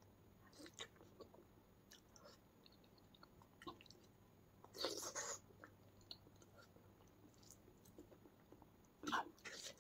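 A person chewing and biting soft cooked bottle gourd close to the microphone, with faint wet mouth clicks. There are two louder bursts of chewing, about five seconds in and near the end.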